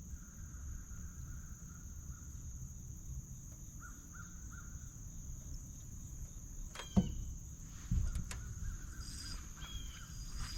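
Outdoor ambience on the water: a steady high insect drone with faint, repeated cawing bird calls. A sharp knock comes about seven seconds in and a duller thud a second later.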